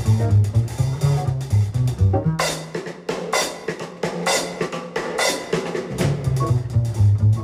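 Background music with a drum kit and a bass line; the bass drops out for a few seconds in the middle while the drums carry on, then comes back near the end.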